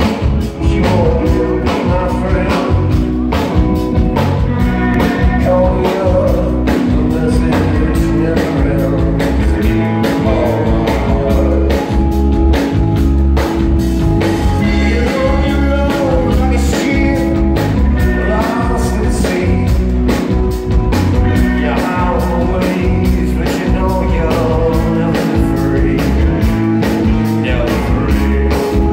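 Live rock and roll band playing loud: electric guitars, bass and drum kit with a singer's lead vocals over a steady beat.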